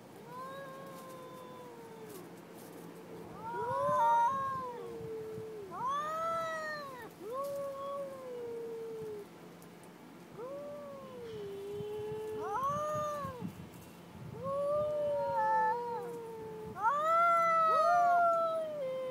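Two cats caterwauling at each other in an aggressive standoff: a long series of drawn-out wails, each rising and falling in pitch, loudest near the end.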